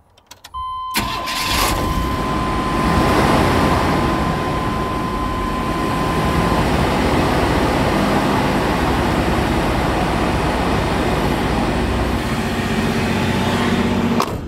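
OBS-era Chevrolet Cheyenne pickup's engine cranked and started after a couple of clicks, then running steadily and loudly on fuel the owner suspects is bad, while a steady warning tone sounds for the first few seconds. The engine sound drops away sharply near the end.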